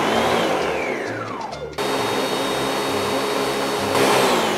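Electric blender running, puréeing onion, bell pepper and tomato without water into a seasoning base. Its motor whine falls in pitch, the sound changes abruptly partway through, and it rises louder again near the end. Background music with a steady low beat plays underneath.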